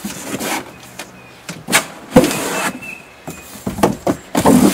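Rustling, scraping and knocking as the inflatable kayak's hose and gear are stuffed into its fabric carry bag and the cardboard box is handled. There are a few sudden bursts of noise, with a sharp thump about two seconds in.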